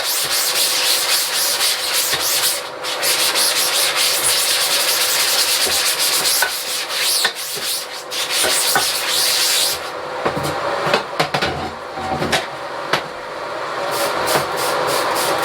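Emulsion remover being scrubbed into the mesh of a screen-printing screen to break down the old emulsion, a dense rubbing hiss. After about ten seconds the rubbing eases off into scattered clicks and knocks, over a faint steady hum.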